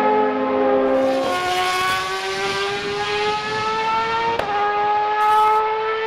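Formula One car engine at full throttle, its pitch climbing steadily. It drops sharply at quick upshifts about a second in and again about four seconds in.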